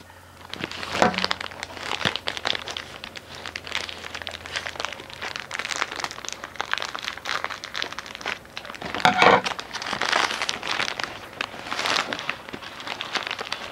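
Plastic wrappers of individually wrapped small cakes crinkling and rustling as they are handled, a run of irregular crackles with louder bursts about a second in and around nine seconds in.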